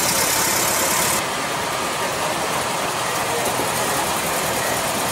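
Vintage Volkswagen Beetles' air-cooled flat-four engines running at low speed as the cars drive slowly past, one after another. The sound changes abruptly about a second in.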